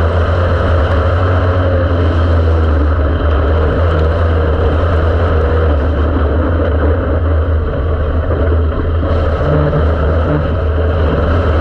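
Dirt-track race car's engine running on the track, loud and steady, heard from inside the cockpit; the level dips briefly about seven seconds in.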